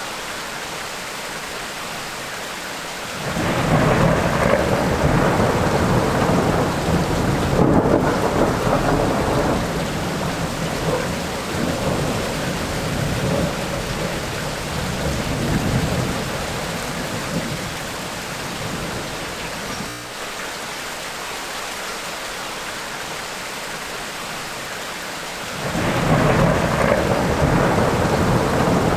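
Steady rain with rolling thunder: a long low rumble starts suddenly about three seconds in and dies away over the next ten seconds or so, and a second rumble begins near the end.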